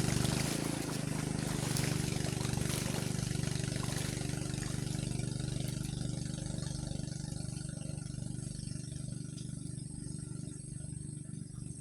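An engine running with a steady low hum that slowly fades, as if moving away.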